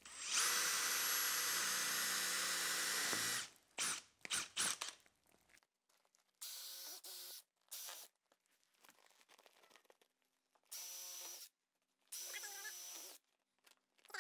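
Cordless drill drilling into a hanging plastic feed bag packed with straw. It runs in one long burst of about three seconds, then in several short bursts.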